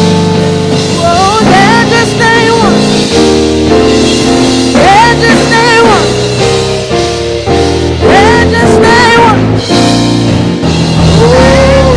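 Church worship music: a voice singing short, wavering phrases about every three seconds over held chords from the band.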